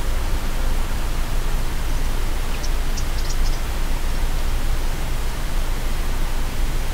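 A loud, steady rushing hiss, even throughout, with a few short, faint high chirps about three seconds in.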